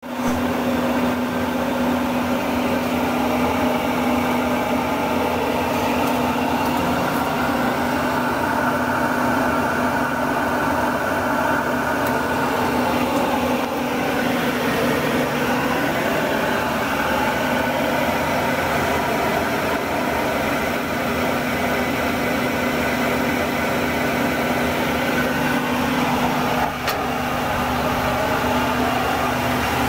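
Industrial centrifugal blower running steadily: an even, loud hum with one strong low tone over a rush of air.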